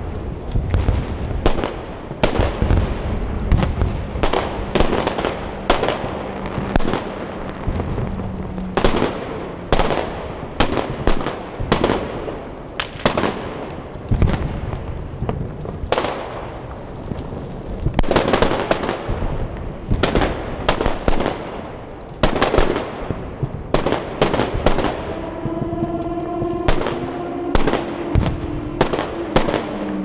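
A small tree burning fiercely, its foliage crackling and popping rapidly and irregularly over the steady rush of the flames as it throws up showers of sparks. A steady pitched tone joins in the last few seconds.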